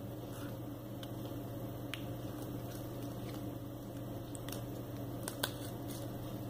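A few faint clicks and rubbing as a plastic Fresnel lens cap is pressed back onto a PIR motion-sensor module and the board is handled, over a steady low hum.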